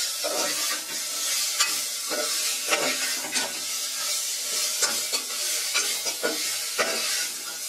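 Sliced onions sizzling in hot oil in an aluminium pressure cooker as they are sautéed to soften. A metal ladle stirs them, scraping and clinking against the pot again and again.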